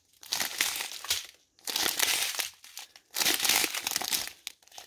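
Small clear plastic bags of diamond painting drills crinkling as they are handled, in three bouts with short pauses between them.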